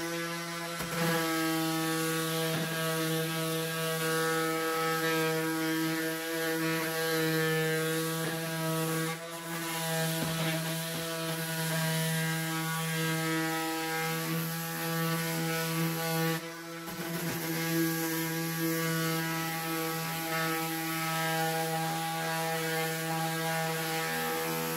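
Ryobi cordless random orbital sander running steadily against wooden boards, a loud even hum with a buzzing edge that dips briefly twice as the sander is moved.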